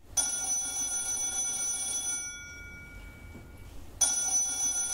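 Telephone bell ringing in two rings of about two seconds each, with a pause between them; the second ring starts about four seconds in.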